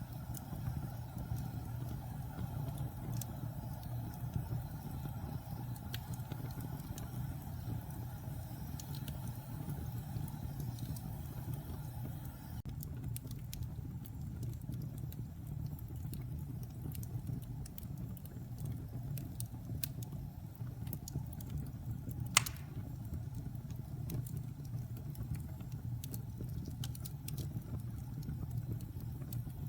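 Wood fire burning with a steady low rumble, scattered small crackles, and one sharp pop about 22 seconds in.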